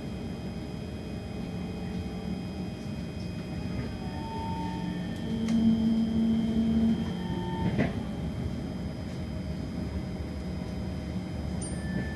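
Kawasaki C151 metro train running along an elevated track, heard from inside the carriage: a steady rumble of wheels on rail with a constant high-pitched whine. From about four seconds in, steady hum tones come and go, and the running gets louder for a couple of seconds around the middle.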